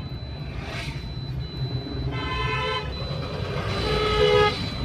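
Engine running with a steady low rumble while a vehicle horn toots twice, each toot under a second long: once about two seconds in and again near the end.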